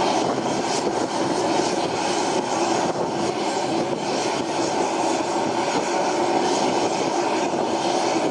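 AgustaWestland Merlin (AW101) helicopter running: a dense, steady turbine-and-rotor noise with a constant hum, holding level throughout.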